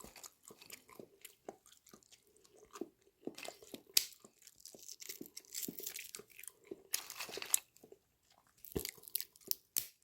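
Close-up eating sounds of microwave-roasted ginkgo nuts: quiet chewing with scattered clicks and small cracks.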